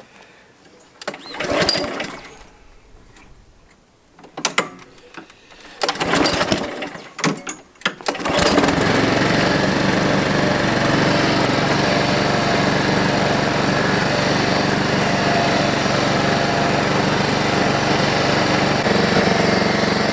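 Honda HRX217HYA walk-behind lawn mower being pull-started: a few short pulls on the recoil starter, then the engine catches about eight and a half seconds in and runs steadily, freshly tuned up with a new spark plug and air filter.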